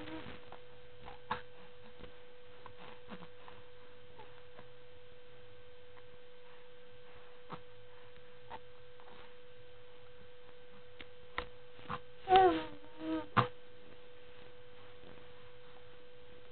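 A faint steady tone hums throughout. About twelve seconds in, a young baby gives a short coo that rises and falls in pitch, with a couple of soft clicks around it.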